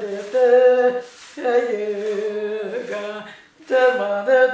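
An elderly woman's voice singing an unaccompanied lament (ağıt) in long, wavering held notes. There are two short breaks for breath, about a second in and again near the end.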